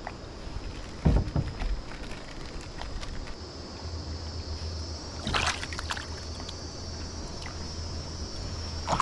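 Water sloshing at a river's edge, with one heavy thump about a second in and short rustles later. A steady high insect buzz runs underneath.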